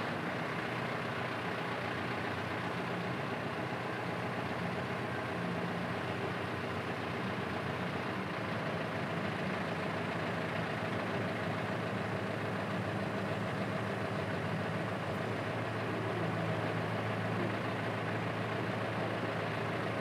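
Balboa Island ferry's engine running steadily, a low drone with a slight swell late on.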